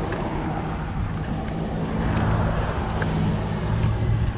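Road traffic noise, with a car going by on the road alongside that swells in loudness from about a second and a half in.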